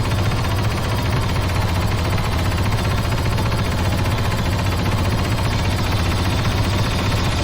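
Sci-fi character sound effect: a loud, steady mechanical roar with a deep hum and a rapid, even rattle, like an engine or rapid-fire weapon running continuously.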